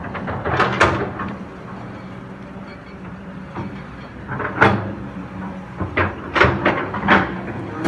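Kobelco SK200 excavator's diesel engine running steadily, with a series of sharp clanks from the machine about a second in and again from about four and a half seconds to near the end.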